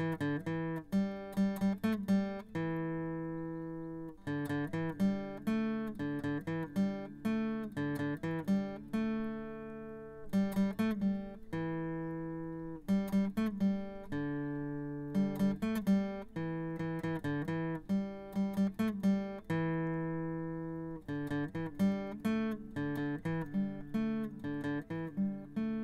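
Acoustic guitar music: quick runs of plucked notes, each run ending on a chord left to ring and fade, repeating every few seconds.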